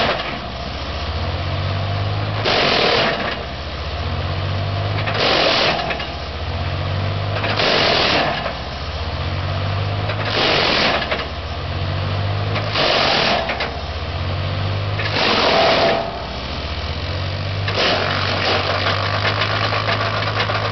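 Red Roo Carlton 1790 wood chipper, driven by its 88 hp Kubota turbo diesel, chipping hardwood near maximum capacity. Loud crunching surges of chipping come regularly, about every two and a half seconds, over the steady engine. Near the end the surges stop and the machine runs evenly with no wood going through.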